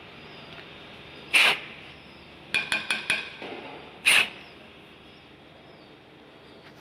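Two short bursts of CRC aerosol cleaner hissing from a spray can onto an atmospheric pressure sensor, a couple of seconds apart. Between them come four quick metallic clinks.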